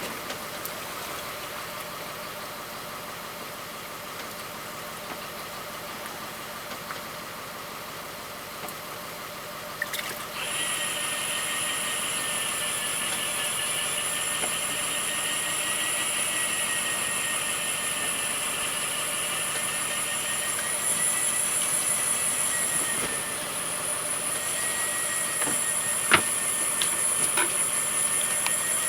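Fishing boat's engine running steadily. About ten seconds in, a louder high-pitched whine with hiss starts suddenly and holds steady, with a faintly wavering tone in it.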